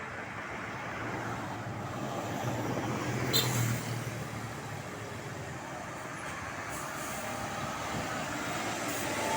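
Road traffic passing, with a heavy vehicle's engine rumbling and the noise slowly growing louder. A short sharp hiss comes about three and a half seconds in.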